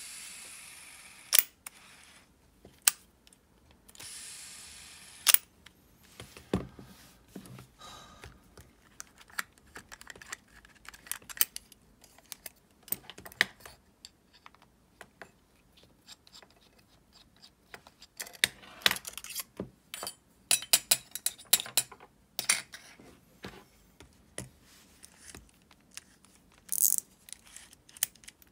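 Old Shimano Calcutta Conquest 400 baitcasting reel: the spool free-spinning with the brake off, its fading whir heard twice in the first five seconds, between a few sharp clicks. Then a long run of small metallic clicks and ticks as the reel is handled, its side plate opened and its handle turned.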